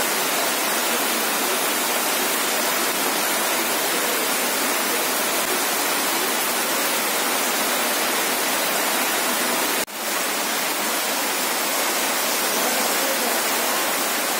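Heavy rain pouring down: a dense, steady hiss of a downpour, breaking off for a moment about ten seconds in.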